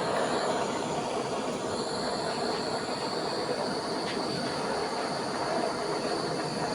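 Moving train running with a steady rumbling noise; a high, steady wheel squeal joins about a second and a half in.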